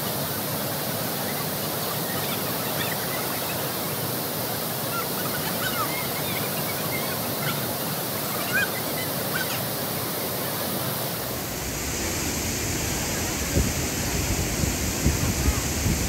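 Steady rush of waterfall and river water, with faint distant voices of swimmers over it. About twelve seconds in the sound turns deeper and gustier, with a few low knocks.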